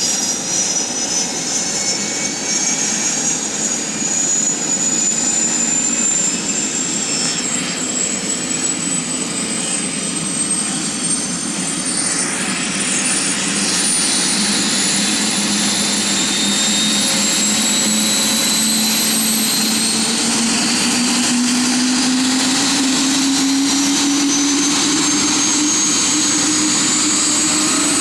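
Medevac helicopter's turbine engine spooling up during startup: a high whine climbs steadily in pitch over the engine's rush. A lower hum also rises in pitch in the second half as the rotor speeds up.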